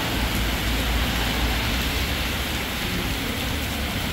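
Heavy rain falling on a city street while cars drive through standing water, their tyres hissing and splashing, over a steady low rumble of traffic.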